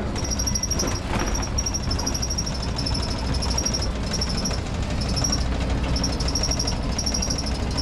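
Steady low rumble inside a running tour bus, with a fast, high-pitched chattering that comes and goes in short runs.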